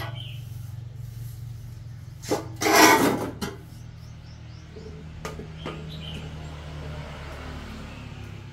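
A long steel mould for concrete balusters set down and scraped into place on a concrete floor: a loud clatter and scrape about three seconds in, then a couple of light knocks. A low steady hum lies underneath, and a bird chirps briefly.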